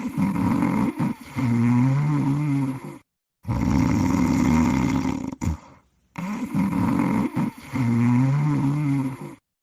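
Cartoon snoring sound effect for a sleeping cat, looped: each cycle is a rasping snore followed by a wavering, pitched breath out, with short silent gaps. The same snore recording repeats about every six seconds.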